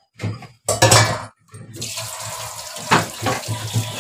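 Tap water running into a stainless steel sink while steel dishes are rinsed. It starts with a few short splashes and clatters, settles into a steady flow of running water from a little under two seconds in, and has a single sharp clank about three seconds in.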